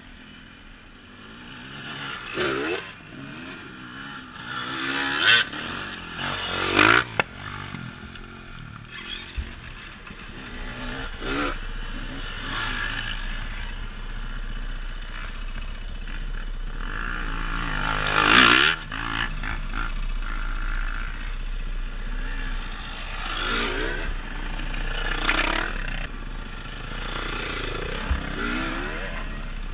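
Dirt bike engines revving past one after another, each swelling and then fading as it goes by, the loudest pass about two-thirds of the way through. A steadier low engine sound sits underneath in the second half.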